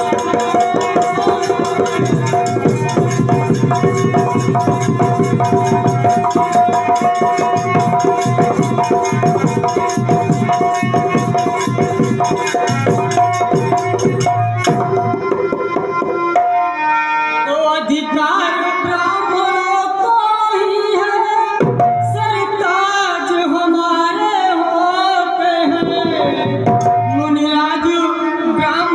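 Live Indian stage music: fast, dense hand-drum playing over steady held notes for about the first half. About halfway through, a voice starts singing a melody while the drum and held notes carry on.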